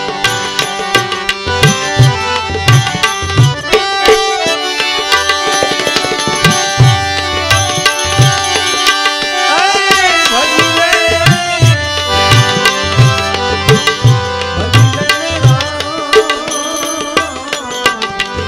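Live bhajan accompaniment: tabla playing a steady rhythm, its deep bass strokes bending in pitch, under sustained instrumental tones. About halfway through, a male voice sings one wavering phrase.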